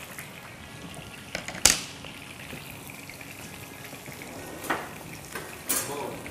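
Coated chicken pieces frying in oil in a nonstick pan, a steady sizzle, broken by a few sharp clicks of metal tongs against the pan, the loudest about a second and a half in.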